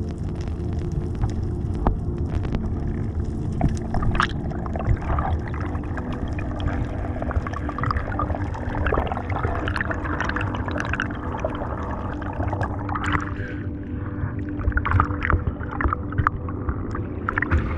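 Underwater sound during spearfishing: a steady muffled water rumble with scattered gurgles and clicks.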